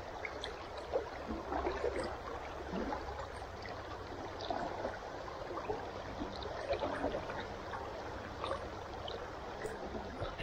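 River water running and gurgling over a shallow riffle: a steady rush with many small irregular splashes and gurgles.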